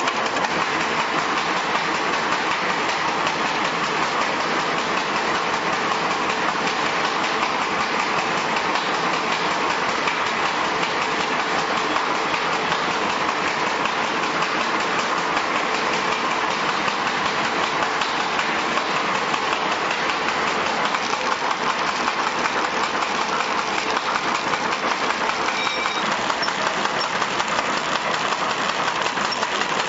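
Automatic high-speed paper bag making machine running: a steady, dense mechanical clatter of rapid strokes that holds an even level throughout.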